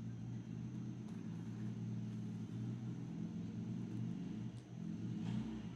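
Steady low background hum, with a few faint light ticks.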